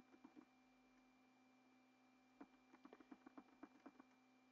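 Near silence with a faint steady hum, broken by faint computer mouse-button clicks: a few right at the start, then a quick run of about ten clicks about halfway through, as the 'faster' button is clicked again and again to speed up the sequencer pattern.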